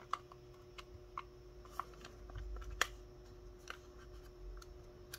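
Small, sharp clicks from a Sony WM-EX70 cassette Walkman being handled, its casing and controls clicking under the fingers, a few times at uneven intervals over a faint steady hum.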